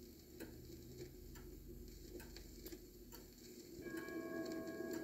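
Vinyl record surface noise: scattered faint clicks and crackle over a low hum from the lead-in groove. About four seconds in, church chimes start ringing the opening notes of a carol, several bell tones sounding at once and louder than the crackle.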